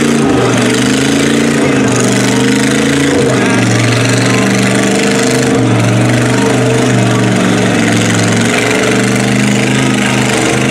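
Lifted SUV's engine running hard under load as its mud tires spin and churn in deep mud, the pitch wavering slightly up and down.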